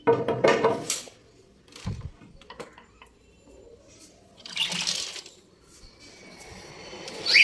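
Collapsible metal grille gate being pulled open: a loud metal rattle and scrape in the first second, then a couple of knocks and clicks, and another rattling rush about two-thirds of the way through.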